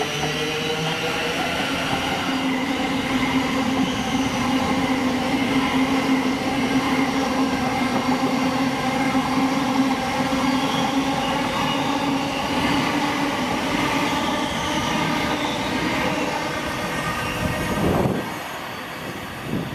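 A train passing on the line, loud and steady with a few held tones in its sound, then falling away sharply near the end.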